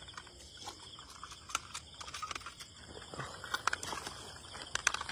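Crickets chirping steadily, with scattered sharp clicks and knocks, a cluster of them loudest in the second half.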